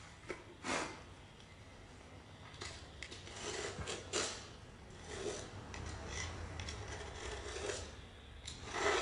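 Repeated scraping strokes as old grout is raked out of the joints between ceramic floor tiles, clearing them so cement slurry can be poured under hollow tiles.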